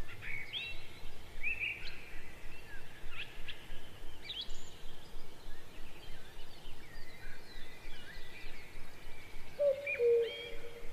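Birdsong: several birds chirping with quick rising and falling calls that overlap, with a lower steady note coming in near the end.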